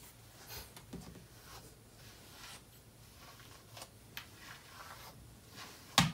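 Soft scratchy strokes of a grooming brush through a Persian cat's long fur, a handful of short strokes spread out, then one sharp knock near the end.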